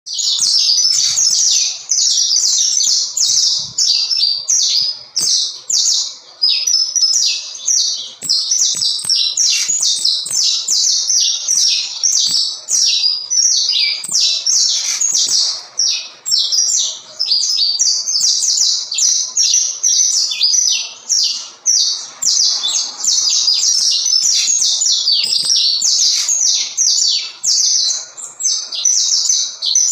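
Saffron finch (canário-da-terra) singing almost without a break: long runs of rapid, high, chirping notes separated by only brief pauses. This is the sustained, repeated singing valued in fibra-style song contests.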